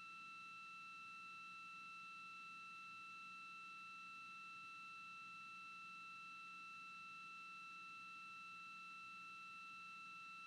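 Near silence: a faint steady high-pitched electronic tone over light hiss on the audio feed.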